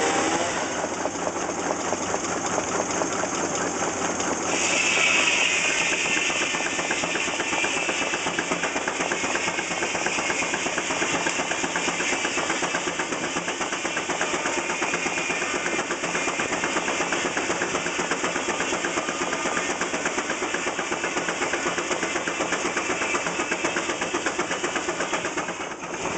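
Aultman-Taylor engine running steadily with a rapid, even beat while belted to a sawmill. A higher ringing sound joins about four and a half seconds in and slowly fades.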